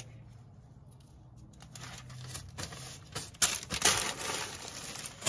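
Clear plastic bags of stock rustling and crinkling as they are handled and pulled from the boxes, with a few sharp knocks among them. This starts about two seconds in and is loudest a little past the middle.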